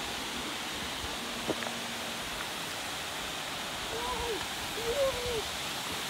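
Steady rushing of a forest waterfall. Indistinct voices come in about four seconds in.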